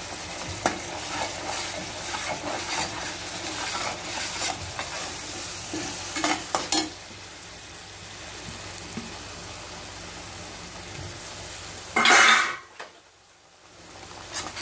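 Ground onion, tomato and green chilli paste sizzling as it fries in hot oil and masala in a steel pan, with a metal fork scraping and tapping on the pan as it spreads the paste. The scraping stops about seven seconds in and the frying hiss carries on steadily, with a brief louder burst near the end.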